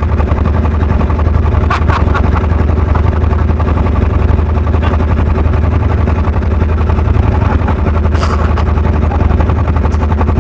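An engine running at a steady speed: a constant low drone that does not rise or fall, with a few faint voices over it.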